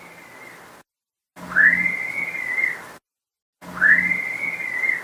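High-pitched scream-like wail on a paranormal EVP recording, captioned as a disembodied scream. It is heard three times, with short silent gaps between. Each cry rises quickly and then holds its pitch over recorder hiss. The second and third are louder than the first.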